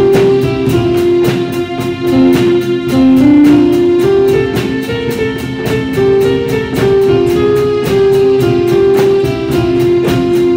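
Small band playing an instrumental piece: a melody of held notes over a steady beat from a drum kit and hand drums such as congas and djembe, with acoustic guitar.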